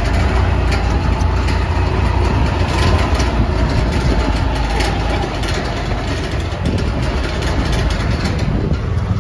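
Small jeep's engine running with a steady low drone, with light rattling clicks over it.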